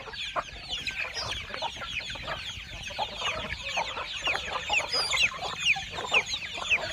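A flock of young native country chickens (desi chicks) peeping and clucking together: many short, falling chirps overlapping in a continuous chorus.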